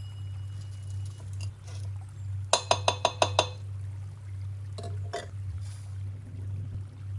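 A metal mesh strainer tapped against a glass teapot, about six quick ringing clinks in a row to knock the rinsed dried leaves out, then a couple of softer knocks as it is set down on a glass bowl. A steady low hum runs underneath.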